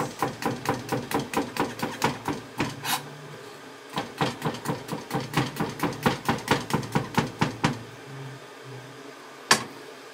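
Kitchen knife slicing garlic cloves on a plastic cutting board: quick, even taps of the blade on the board, about seven a second, in two runs with a short pause between them. Near the end a single louder knock as the knife is laid down on the board.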